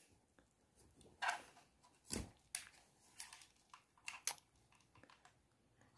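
A few faint, scattered clicks and rustles of handling as an audio cable's plug is pushed into the auxiliary input jack of a small portable voice amplifier. The sharpest click comes a little past four seconds in.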